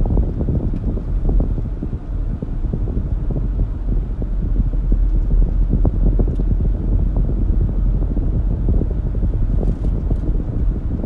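Wind buffeting the microphone: a loud, low rumble with irregular gusty flutters.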